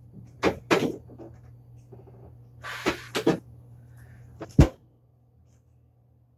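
Hand-handled household objects knocking and bumping, with a short rustle of handling in the middle and a heavy thud about four and a half seconds in.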